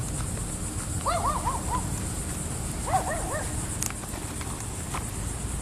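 A dog barking in two quick runs of about four high yips each, a couple of seconds apart, over a steady low outdoor rumble.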